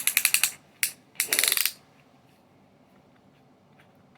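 Ailuki cordless drill's clutch (torque-setting) collar being turned, its detents ratcheting: two quick runs of sharp clicks with a single click between, all within the first two seconds.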